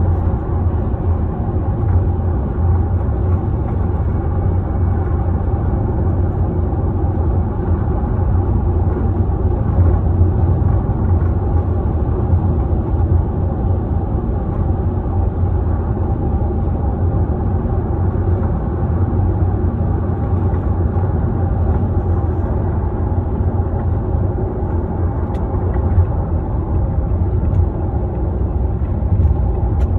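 A steady low rumble from a 2015 Toyota Camry on the move, which the owner places at the right front wheel. It is a constant, non-intermittent noise that the owner says gets louder at higher speed. It has persisted after the wheel bearing and both ball joints were replaced, and its cause is undiagnosed.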